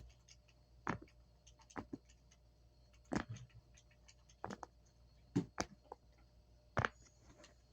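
Silicone pop-it fidget toy shaped like a dinosaur, its bubbles pressed one at a time: a string of about a dozen irregularly spaced pops and clicks.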